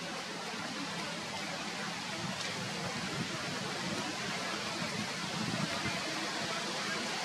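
Steady, even background hiss with no distinct calls or other sounds.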